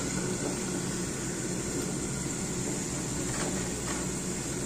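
A steady, even hiss with a faint click right at the start.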